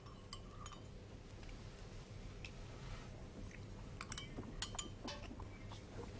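Faint, scattered clinks of china cups, plates and cutlery at a tea table, a dozen or so small taps with a slight ring, coming closer together about four seconds in.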